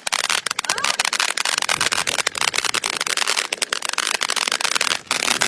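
A consumer firework fountain crackling: a fast, dense, uneven stream of sharp pops and crackles that goes on without a break.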